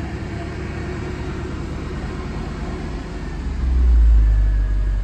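2009 Mercedes-Benz C63 AMG's hand-built 6.2-litre V8 idling steadily, with a swell of deep rumble about four seconds in.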